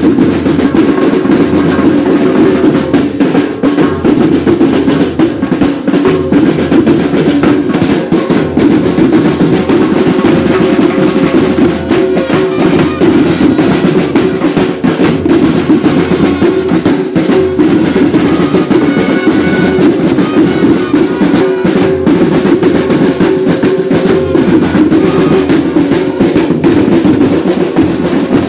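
Marching-band drumline playing loud, continuous drumming: snare drums and deeper marching drums struck with wooden sticks close by.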